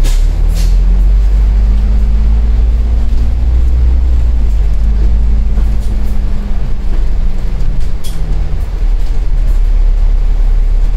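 Double-decker bus diesel engine pulling away from a stop, heard from on board: a deep, loud rumble with an engine note that climbs, dips about four and a half seconds in, climbs again and eases off around eight and a half seconds in. A short hiss at the very start.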